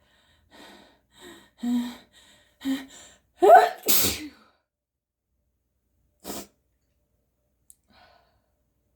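A person's sneeze: a run of short catching breaths building up over about three seconds, then one loud full sneeze a little before the middle. About two seconds later comes a short sharp breath noise.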